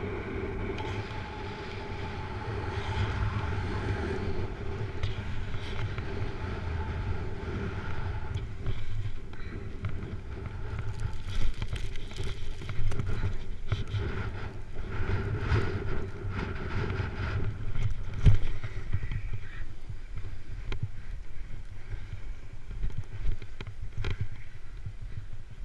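Snowboard sliding and carving down a snow slope, its edges scraping the snow, with wind rumbling on the camera microphone. A few louder scrapes or knocks come about 11, 13 and 18 seconds in.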